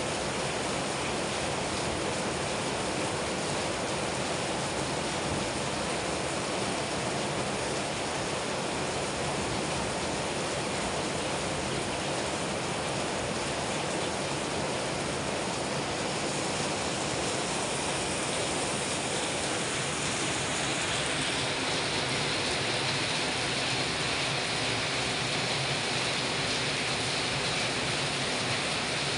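Steady rain falling on tropical vegetation and the ground, an even hiss with no breaks, growing a little hissier about two-thirds of the way through.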